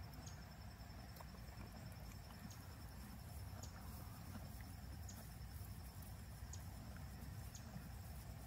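Faint outdoor ambience: a steady high-pitched insect trill, like crickets, with scattered short high chirps and a low rumble underneath.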